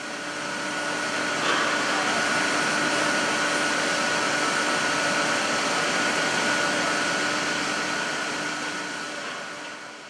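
Aluminium cable-sheathing extrusion machinery running: a steady whir and hum with a few held tones over even noise. It fades in over the first second and fades out near the end, with a brief clack about a second and a half in.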